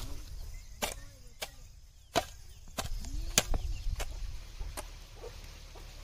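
A short-handled hand hoe chopping into grassy soil: about seven sharp strikes at an uneven pace, roughly one every two-thirds of a second.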